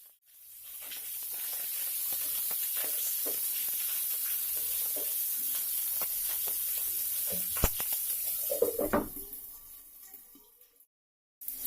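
Mustard seeds and green chillies sizzling in hot oil in a covered nonstick pan, a steady hiss with many small pops as the seeds crackle. It fades out near the end.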